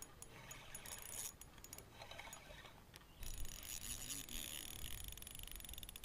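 Spinning reel being cranked fast, its gears and bail giving a light rapid ticking and rattle while a hooked bass is reeled in. There is a louder bump a little over three seconds in.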